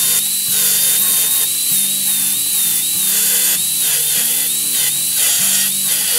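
Angle grinder with a cut-off disc cutting into a steel exhaust manifold. Its high whine dips again and again as the disc bites under load. Background music plays underneath.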